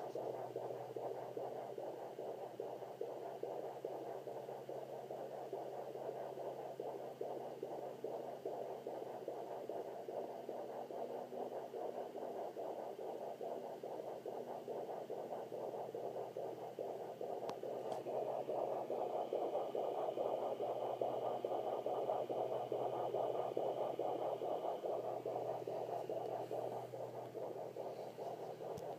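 Sonoline B fetal Doppler's loudspeaker giving a steady static hiss with scratchy whooshing as the probe searches the belly for a 27-week fetus's heartbeat.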